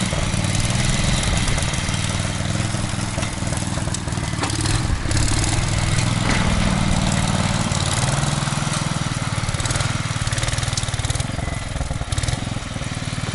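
Snowblower engine running steadily while clearing snow, its pitch shifting a couple of times as it works.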